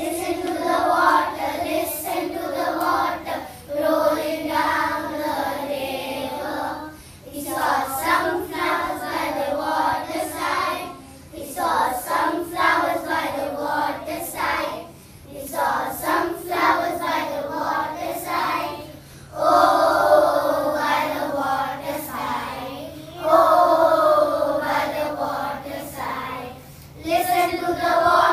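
A group of young children singing a song together in unison, in phrases of about four seconds with short breaks between them.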